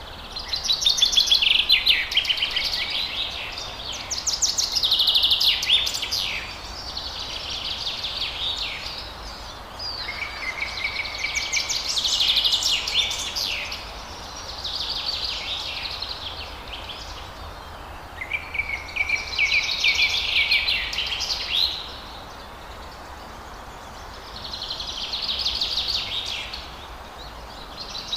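Forest birds singing in rapid, chattering trilled phrases a few seconds long, repeating with short pauses, over a steady background hiss.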